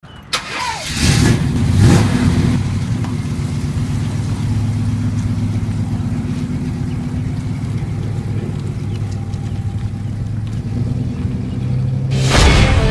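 A 1953 Chevrolet 210's engine starting with a quick rev about a second in, then running steadily. Music cuts in near the end.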